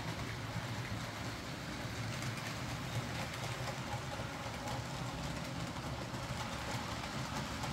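OO gauge model trains running on layout track: a steady low motor hum with the rattle of wagon and coach wheels on the rails.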